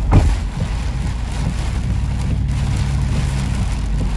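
Vehicle driving through heavy hurricane rain on a flooding road: steady engine and tyre rumble under the rush of rain and water. A short louder burst of noise comes right at the start, and a low steady hum joins in through the middle.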